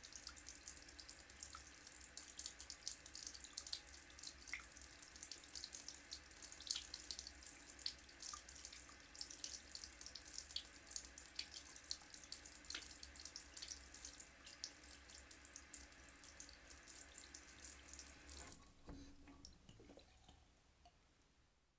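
Tap running into a wash-hand basin with the plug out, water splashing steadily on the basin and draining away. Near the end the flow stops suddenly, leaving a few last drips that fade out.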